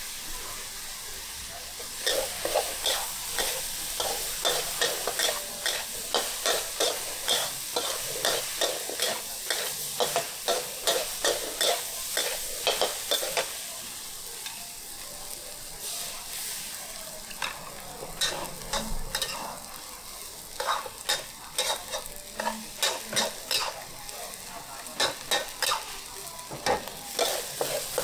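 Stir-frying in a wok: a metal spatula scraping and knocking against the pan about twice a second over a steady sizzle of hot oil. The strokes come in runs, with a lull of a couple of seconds about halfway through.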